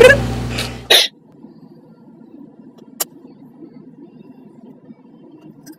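Faint steady low hum inside a car's cabin, with one sharp click about three seconds in. Before that, the first second holds the end of loud talk, cut off by a short loud burst.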